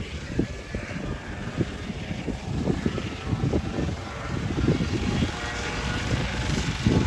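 Air ambulance helicopter running on the ground with its main rotor turning: a steady turbine whine over an uneven low rotor chop.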